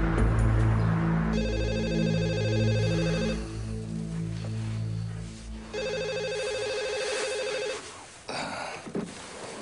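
A mobile phone ringing twice, each ring a rapid trilling electronic tone about two seconds long, over low music that fades out during the second ring.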